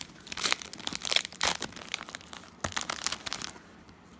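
Foil wrapper of a Pokémon Guardians Rising booster pack crinkling and tearing as it is pulled open by hand, in two spells of dense crackling, then going quiet near the end.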